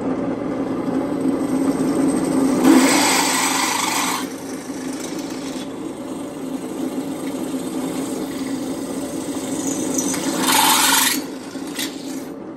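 Drill press running and drilling a new hole through a golf cart roof-brace tube: a steady motor hum, with louder bursts of cutting noise about two and a half seconds in and again near the end.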